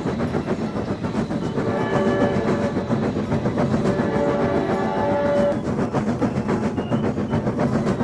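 Train sound effect: a train running with a fast, steady clickety-clack of wheels over rail joints, and a horn sounding in two held notes of about a second each.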